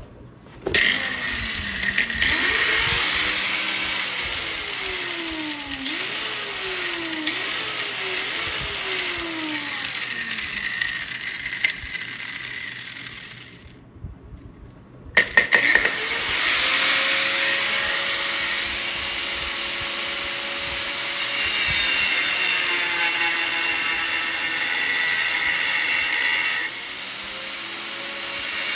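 Northern Industrial angle grinder with a cutoff wheel cutting steel. The motor's pitch repeatedly sags and recovers as the wheel bites. It winds down about 13 seconds in, starts again about two seconds later and runs on. The owner says the grinder's switch is going bad.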